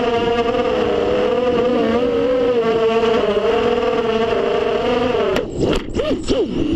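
FPV racing drone's electric motors and propellers whining steadily in flight, the pitch wavering a little with the throttle. About five and a half seconds in, the whine breaks up into clicks and wobbling, swooping tones as the drone crashes into the grass.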